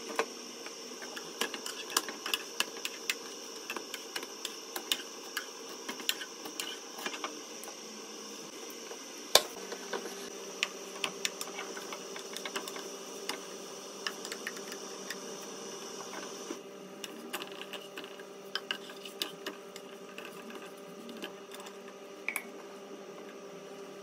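Small flatbreads cooking on a hot non-stick griddle pan: a steady kitchen hum with many small scattered clicks and ticks, and one louder knock about nine seconds in.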